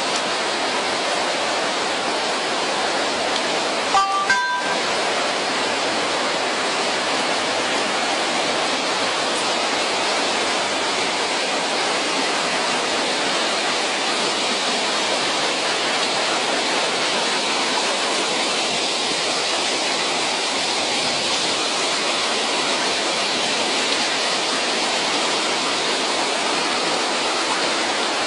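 Floodwater rushing down a street, a loud steady rush with no change. About four seconds in there are two short beeps.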